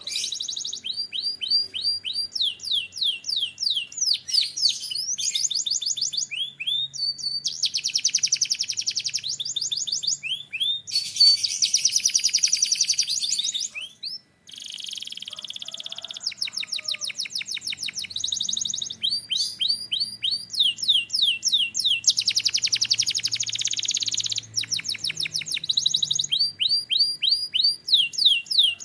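Domestic canary singing a long song made of runs of quick repeated falling whistles and fast buzzy trills, one phrase after another, with a brief pause about halfway through.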